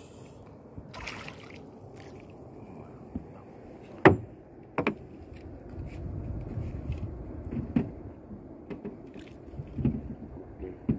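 Knocks and scrapes against a small boat while a hooked fish is fought on rod and line and swung aboard: a sharp knock about four seconds in, the loudest sound, another just after, and a few lighter ones near the end, over a low steady wash of water and hull noise.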